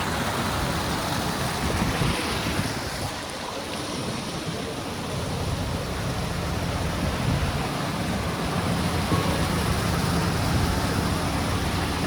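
Wind rumbling on the microphone over a steady outdoor hiss, dipping slightly about three to four seconds in.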